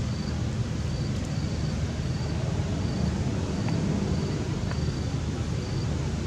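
Steady low outdoor rumble, with a faint high-pitched chirp repeating a little under twice a second.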